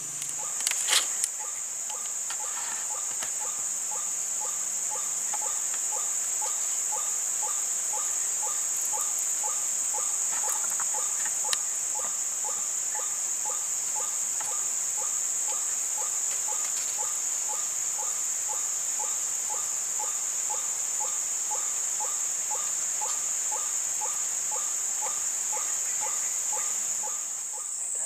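A steady high-pitched insect drone with a white-breasted waterhen's short call repeated monotonously, about twice a second, from a couple of seconds in until near the end. A few faint clicks come about a second in.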